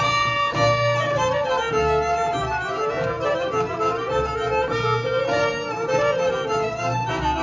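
Polish folk band playing live, fiddles leading a lively tune.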